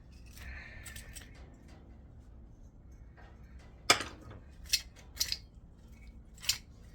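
Sharp metallic clicks and clinks from hand tools and metal parts as a small transformer is pulled apart for its copper winding. There are four separate strikes in the second half, the loudest about four seconds in, over faint rustling.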